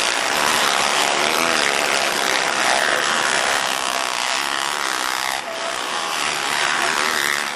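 Several dirt bike engines revving hard around the motocross track, a dense buzzing whose pitch keeps rising and falling with the throttle.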